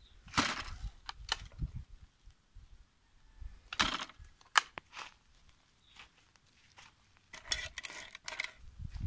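Scrapes, clicks and rustles of hands handling a Stihl KM 100 R engine unit and its blade attachment, with crunching steps on gravel; the engine is not running.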